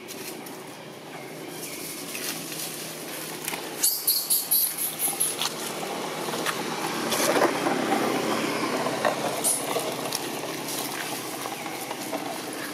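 Dry leaf litter rustling and crackling as long-tailed macaques move over it, with scattered sharp crackles that grow louder past the middle. A quick run of high-pitched pulses comes about four seconds in.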